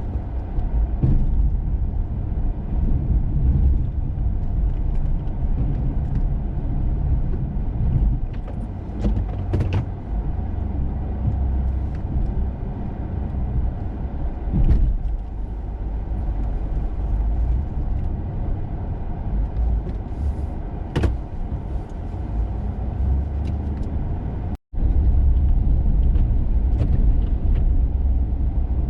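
Plow truck running while pushing heavy, wet snow with a Snowdogg VXFII V-blade: a steady low rumble with a few sharp knocks and clunks, and the sound cuts out for an instant about three-quarters of the way through.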